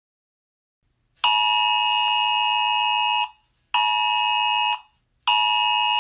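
Emergency-alert alarm tone: a steady, harsh electronic dual tone sounded in three blasts. The first, long blast starts about a second in, a short one follows, and another long blast starts near the end.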